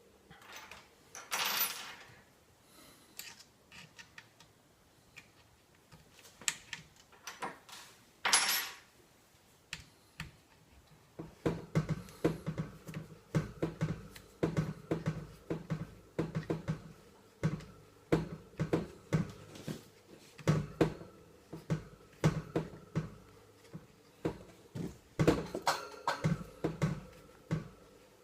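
Metal shotgun-stock parts being handled. There are two short swishes early on, then from about eleven seconds a steady run of quick metallic clicks, a few a second, as a bolt in the collapsible stock is tightened down.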